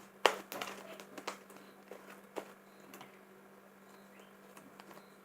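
Fluffy slime being squeezed and handled, giving a few sharp sticky clicks and soft crackles, the loudest about a quarter second in, over a faint steady hum.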